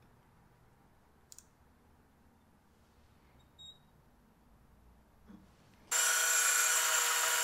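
Faint handling clicks while an outside micrometer is worked on a turned steel shaft, then about six seconds in an old Monarch gear-head lathe starts up suddenly and runs at speed with a steady, many-toned gear whine.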